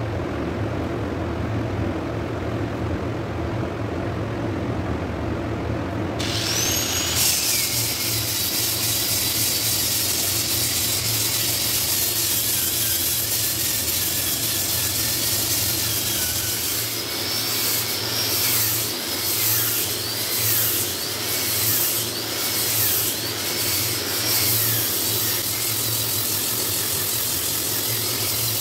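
Angle grinder with a sanding disc switched on about six seconds in, its whine rising as it spins up over a steady low background hum. It then sands the inside of an Albizia lebbeck wood bowl, its pitch dipping again and again in the second half as the disc is pressed into the wood.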